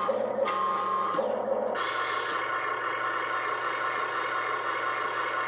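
1/12-scale RC Caterpillar excavator running as it moves its arm and bucket: a steady mechanical whine and hum that changes several times in the first two seconds, then holds steady.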